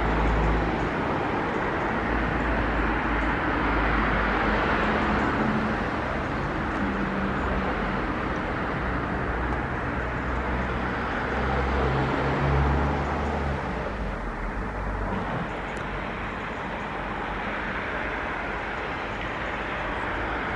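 A train rolling slowly past: a steady rumble of running gear with low motor tones that shift in pitch.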